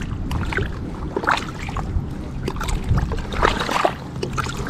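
River water rushing steadily, with irregular splashes and trickles of water close by.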